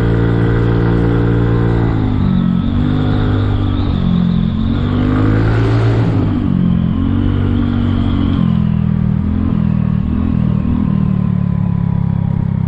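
Kymco People 250 scooter's single-cylinder engine running under way through a slip-on muffler whose joint to the down pipe is sealed with JB Weld HighHeat. Its pitch drops about two seconds in as the throttle eases, then rises and falls several times before settling steady near the end, with a brief rush of noise midway.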